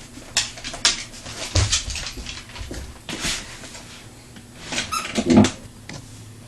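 Excited pit bull handling a toy: a run of short rustles and clicks, with a brief whimper about five seconds in.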